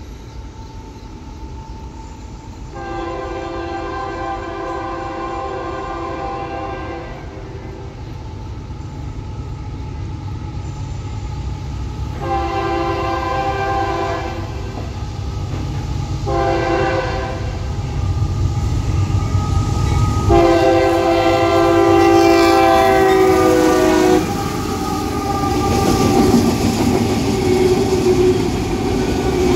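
Horn of a CSX freight train's lead locomotive, a rebuilt CM44AC, sounding the grade-crossing pattern as the train approaches: long, long, short, long, over the growing rumble of the two diesel locomotives. After the last long blast the locomotives pass close by, and autorack cars roll past with their wheels clattering on the rails.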